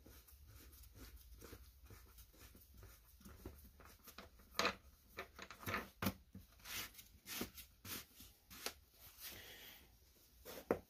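Faint irregular clicks and knocks of a plastic air filter cover being handled and fitted onto a small engine's air cleaner housing by hand.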